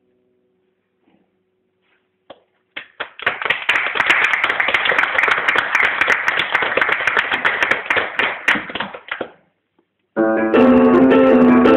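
The last faint held notes of music die away, then an audience applauds for about six seconds. After a brief gap, keyboard music with piano-like notes starts up loudly.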